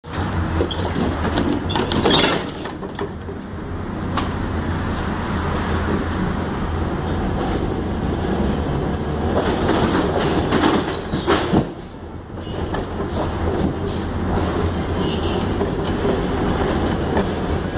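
Old Heliopolis tram running along the track, heard from inside its driver's cab: a steady rumble with a low hum, and sharp clacks from the wheels on the rails about two seconds in and again around ten to eleven and a half seconds.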